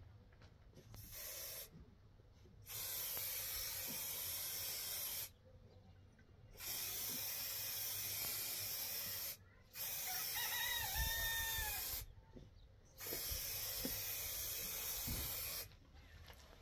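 Aerosol spray-paint can hissing in four long bursts of about two to three seconds each, after a shorter, softer one. A rooster crows in the background about ten seconds in.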